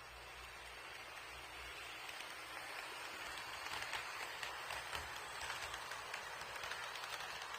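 HO-scale model freight train, headed by an EF64 locomotive, rolling along the track with a steady hiss of wheels on rail and a fast patter of small clicks. It grows louder as the train approaches.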